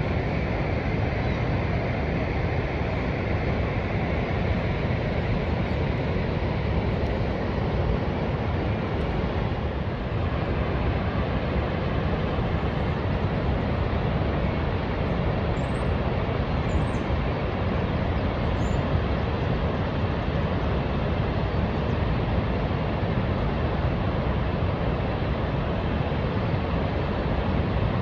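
Niagara Falls: the steady rush of water pouring over the falls, an even noise that holds its level throughout, with a few faint high chirps in the middle.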